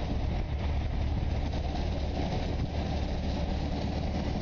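Steady low mechanical rumble with an even hiss over it, holding level throughout.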